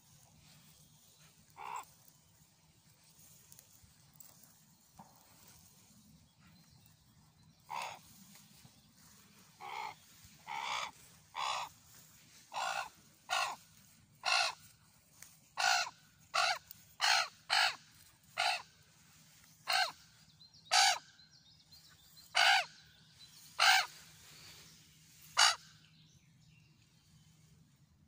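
Common raven cawing: one call about two seconds in, then from about eight seconds a run of some eighteen short caws, about one a second, ending a little before the close.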